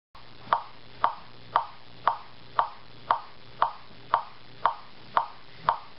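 Steady ticking, about two sharp ticks a second, over a faint low hum.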